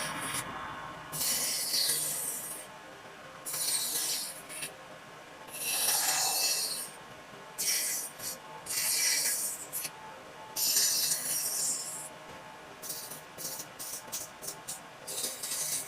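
Rubbing strokes across a wooden cutting board, each about a second long with short pauses between, then a run of quicker, shorter strokes near the end.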